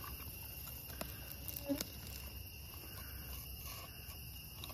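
Summer-night chorus of crickets and other insects, a steady high trilling at several pitches, with a couple of faint clicks about one and two seconds in.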